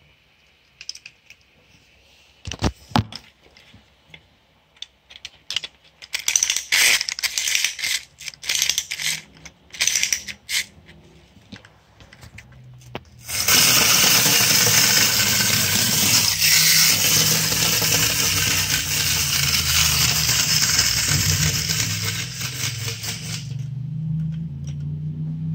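A 1930s Keim tin clockwork walking dog: a run of metallic clicks and rattles, then its spring-driven clockwork motor starts about halfway through and runs with a loud steady whir for about ten seconds before stopping as it unwinds.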